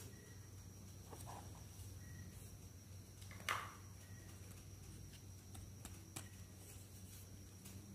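A plastic doll tiara headband being picked up and handled: a brief plastic rustle and clatter about three and a half seconds in, then a few light taps, over a faint steady hum.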